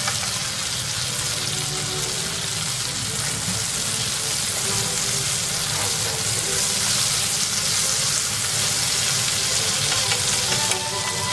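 Butter sizzling steadily as it melts in a hot frying pan, pushed around with chopsticks.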